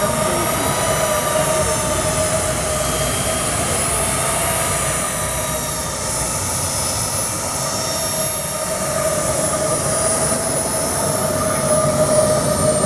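Small model jet turbine in a scale RC F-5 Tiger running steadily at low power as the model taxis, a constant high-pitched whine with a slight waver in pitch.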